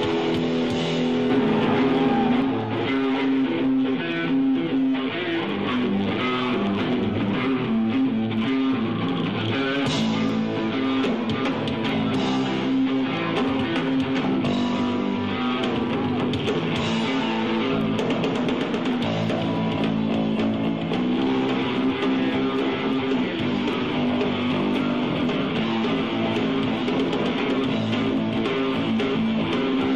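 Live punk rock band playing a guitar-led passage without vocals: electric guitar chords over bass and drums at a steady level.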